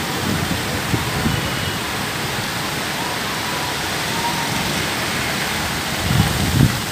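Heavy rain falling, a steady dense hiss. Low rumbling buffets of wind on the microphone come near the end.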